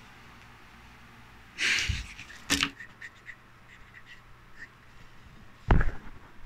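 Handling noises from a wooden rifle stock being worked by hand: a short rushing scrape about two seconds in, a sharp click just after, a few faint ticks, and a heavier knock near the end.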